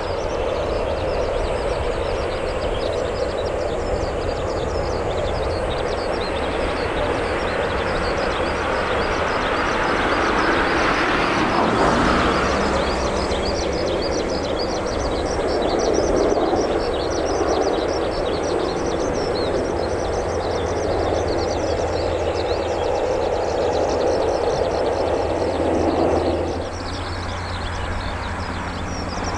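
Boeing 737-800's CFM56-7B turbofans running at low power as the airliner taxis after landing: a steady jet-engine noise that swells briefly around the middle and drops suddenly in level near the end.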